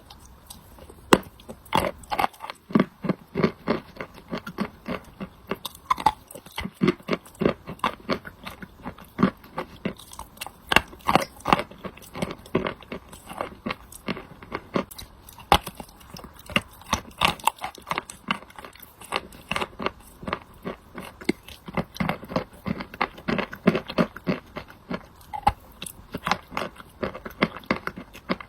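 Close-up chewing of wet chalk coated in clay paste: a continuous run of crisp crunches and bites, several a second.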